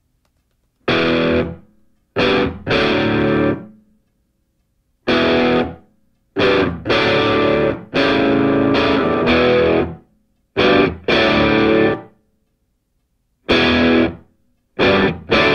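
Rock music on distorted electric guitar, played in stop-start fashion: loud chords hit and held for half a second to a few seconds, each cut off into complete silence before the next.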